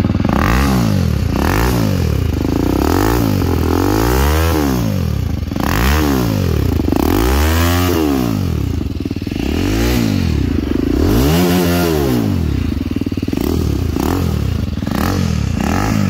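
TVS Apache RR310's single-cylinder engine breathing through an Akrapovič full-system exhaust with a resonator pipe, revved over and over in throttle blips that rise and fall in pitch, roughly one a second, a few of them longer and higher.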